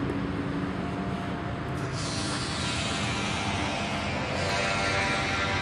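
Steady road traffic noise, vehicles passing on a busy road, growing a little louder about four seconds in.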